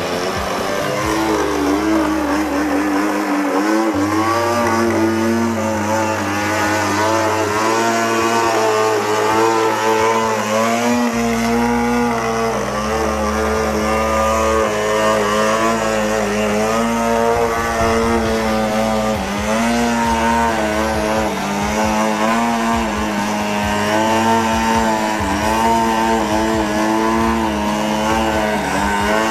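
OS GT22 single-cylinder two-stroke gasoline engine of an RC aerobatic plane running, its pitch rising and falling with the throttle through the manoeuvres. Near the end it holds the plane hanging nose-up on the propeller in a torque roll.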